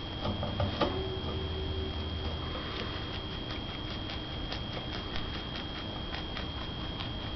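Rabbit chewing parsley: a rapid, irregular run of small crunching clicks, with one sharper knock about a second in.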